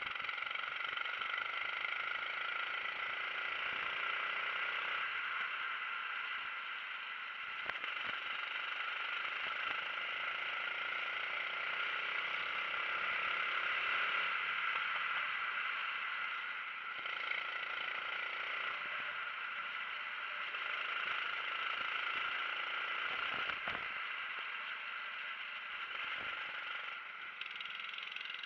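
Kart engine running under racing load, heard from the driver's seat, its pitch rising and falling as the driver accelerates and lifts through the corners.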